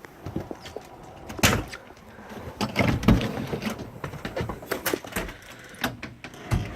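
A string of knocks and thumps with footsteps and handling noise, the loudest about one and a half and three seconds in.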